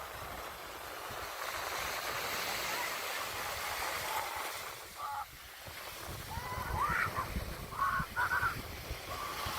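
Sea waves washing onto a sandy beach, with several short, high calls, the loudest coming in the second half.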